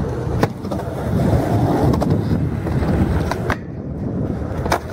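Skateboard wheels rolling on concrete with a steady rumble, broken by a few sharp clacks of the board hitting the ground: one about half a second in, two close together past the three-second mark, and one near the end.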